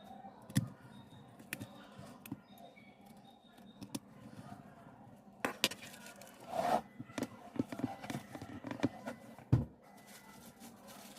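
Repair tools and phone parts being handled on a workbench during a smartphone screen replacement: scattered small clicks and taps, a short run of light scraping midway and one dull knock near the end.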